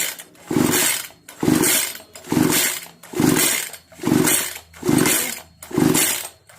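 Recoil starter of a 58 cc two-stroke chainsaw pulled over and over, about seven quick pulls a little under a second apart, each a rasping whirr as the engine spins with its spark plug out. It is a spark test, with the plug held against the cylinder, and the plug is sparking.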